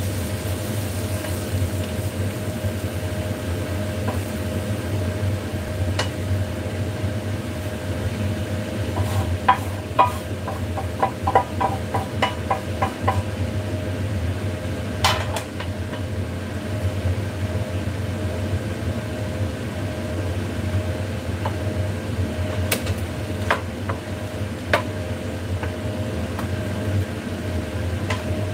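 Spatula scraping and knocking against a nonstick frying pan as stir-fried cabbage and noodles are scooped into a bowl, with a quick run of about ten light taps around ten seconds in and a few sharper knocks later. A kitchen exhaust fan hums steadily underneath.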